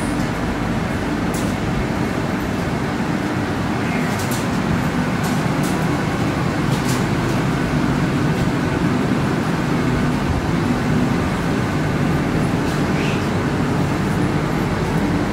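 Steady low rumble of vehicle traffic around a station footbridge, with faint footstep clicks now and then.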